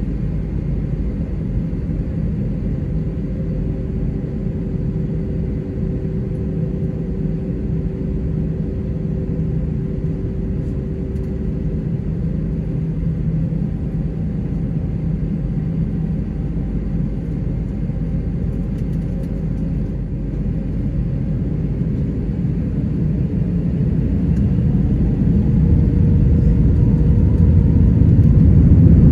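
Airbus A321-232's IAE V2500 jet engines heard inside the cabin as a steady low rumble, which swells steadily over the last several seconds as thrust builds for the takeoff run.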